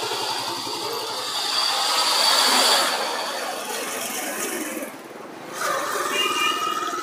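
Busy street noise with rattling and a motor vehicle passing close, loudest about two and a half seconds in; a short higher-pitched tone sounds near the end.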